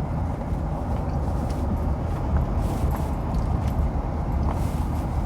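Steady low rumble of an airport arrivals hall's background ambience, with no distinct events.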